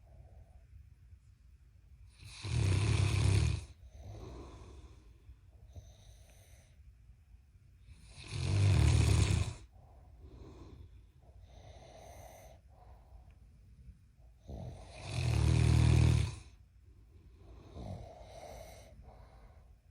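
Loud snoring: three long snores about six seconds apart, with quieter breaths between them.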